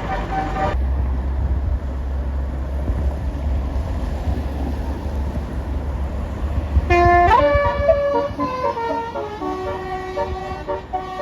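A multi-tone telolet bus horn of the Basuri kind cuts off just under a second in. A bus engine's low rumble follows, then about seven seconds in a telolet horn starts up again, playing a tune of several notes that step up and down.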